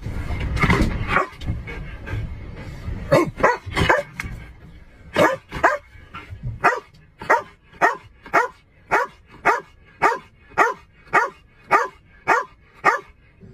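Police K-9 dog barking inside a patrol car: a few barks, then a steady run of barks about two a second through the second half. A low rumble sits under the first half and stops about halfway through.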